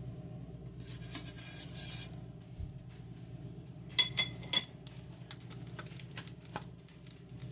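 Oil being spread across a hot non-stick frying pan: a short scraping rustle about a second in, a few ringing clinks of a utensil on the pan around four seconds in, then scattered small crackles of the heating oil.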